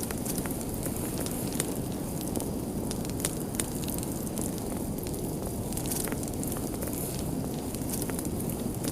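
Wood fire burning, with frequent scattered sharp crackles and pops over a steady low rush.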